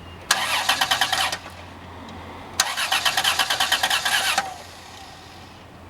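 A 1996 Voyager minivan's starter cranking the engine in two bursts, about a second and nearly two seconds long, with a fast even chug. It stops each time without the engine catching.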